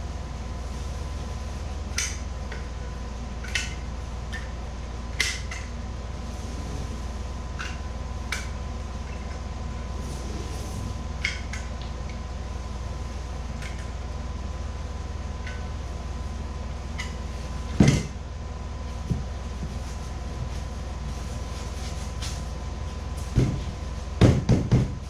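Scattered light clicks and knocks from handling plywood inlay pieces and tools while gluing, with one louder knock about two-thirds of the way through and a quick cluster near the end, over a steady low hum.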